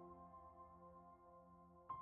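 Soft ambient background music: a held chord fading away, with a new chord struck just before the end.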